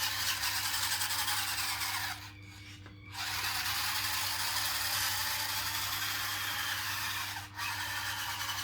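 Small electric drive motors and gearboxes of a 1/16 scale RC bulldozer whining as it runs, the pitch shifting a little with speed. It stops for about a second a little over two seconds in, and cuts out again for a moment near the end.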